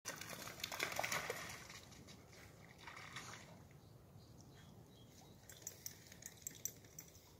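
A dog splashing as it runs through shallow river water, loudest in the first second and a half, then fading to faint running water, with a few light clicks near the end.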